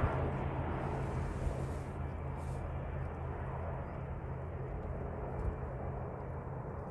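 Regional jet engine noise, a steady rushing hum that slowly fades, with wind rumbling on the microphone.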